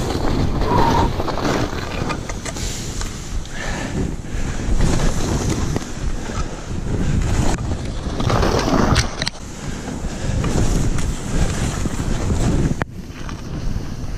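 Skis swishing and scraping over snow on a fast downhill run, with wind buffeting the microphone. The rushing noise swells and eases in surges and drops away sharply near the end.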